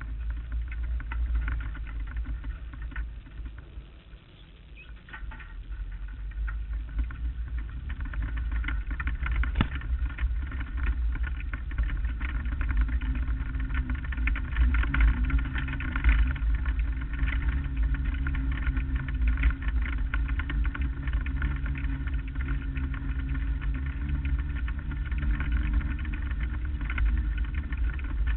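Lightning Sprint race car's engine running, heard from the car's own onboard camera with heavy rumble from wind and vibration. It dips briefly a few seconds in, then grows louder and steadier as the car gets up to speed on the track.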